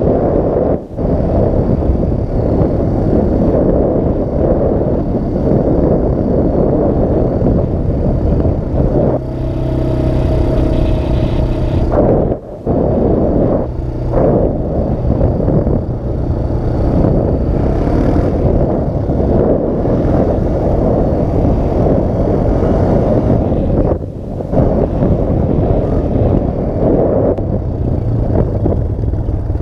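Honda Recon 250 ATV's single-cylinder engine running as the quad is ridden, largely buried under heavy wind rush on the microphone, with some rattling. The engine note stands out more clearly for a few seconds about a third of the way in.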